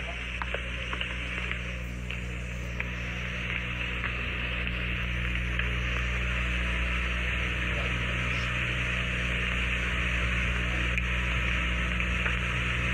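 Steady hiss and low electrical hum of an old film soundtrack, slowly growing louder.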